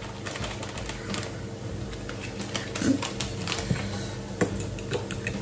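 Soft background music under light irregular clicks and rustles from a plastic packet of grated Parmesan being shaken out into a ceramic bowl.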